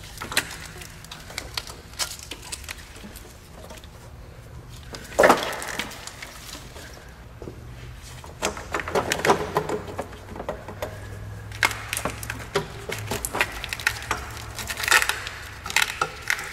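Clicks, knocks and rattling of plastic and rubber parts as spark plug wires and hoses are worked loose and pulled off the engine. A sharp knock about five seconds in is the loudest sound, and bursts of clicking follow through the second half.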